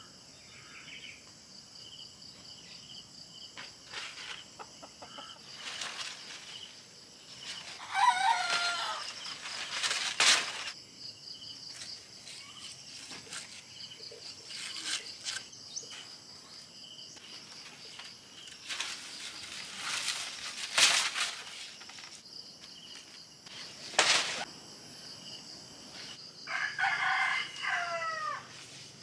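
A rooster crowing twice, about eight seconds in and again near the end, over a steady, high chorus of crickets. A few sharp knocks come in between.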